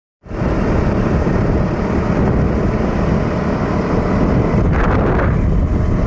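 Wind rushing over the microphone with a two-wheeler's engine running underneath while riding along a road; a steady, loud rush that starts after a brief moment of silence.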